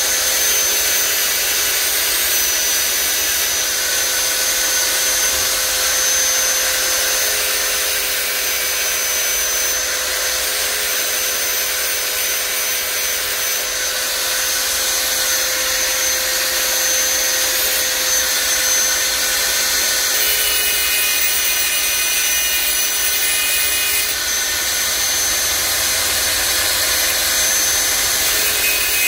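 Handheld mini grinder running continuously with a steady whine, cutting into a car headlight housing.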